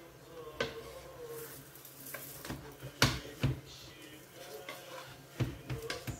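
A few light knocks and clatters of a griddle pan and plate being handled as cooked rgag sheets are stacked, the loudest pair about three seconds in.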